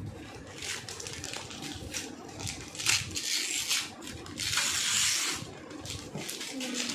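Gift-wrapping paper being torn and crinkled by hand as a present is unwrapped, with two longer ripping tears about three and four and a half seconds in.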